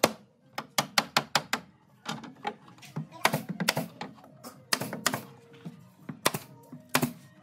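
Sharp knocks. There is a fast run of about eight between roughly half a second and 1.6 s, then scattered single knocks through the rest.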